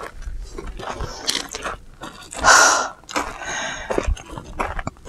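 Footsteps crunching on loose stony gravel, with a short loud rush of breathy noise about two and a half seconds in.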